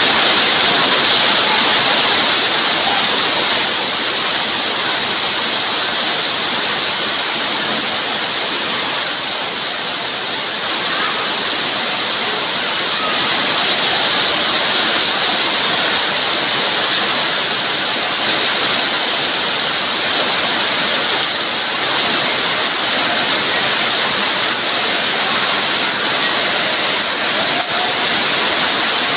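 Heavy tropical rain pouring steadily onto a wet yard, a dense, even hiss of falling water with no let-up.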